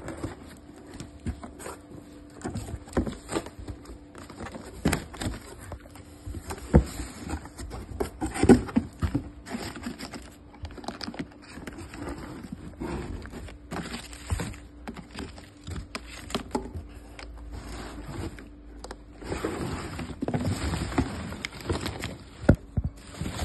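A cardboard box being opened and unpacked by hand: crumpled corrugated-cardboard packing and plastic wrap rustling and crackling, with scattered knocks and taps as the box and its contents are handled. The rustling thickens near the end.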